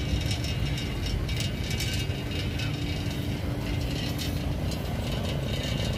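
Pedal cycle rickshaw rolling along, its chain and freewheel rattling and clicking over steady low road noise.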